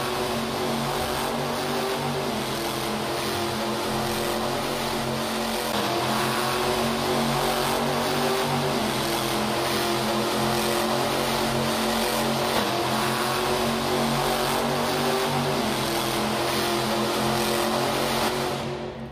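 A monster truck's supercharged V8 held at high revs while the truck spins donuts on the dirt. The engine note stays steady, then drops away suddenly near the end.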